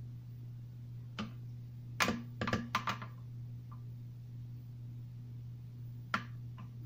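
Light plastic knocks and clicks from a one-gallon plastic pump sprayer jug being handled and tilted: one knock about a second in, a quick cluster of about five between two and three seconds in, and two more near the end, over a steady low hum.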